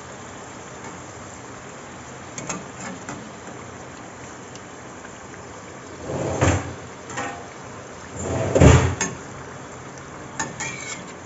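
Puris deep-frying in hot oil in a steel kadai, a steady sizzle. A steel slotted spoon clatters and scrapes against the pan a few times, loudest about six and a half and nearly nine seconds in.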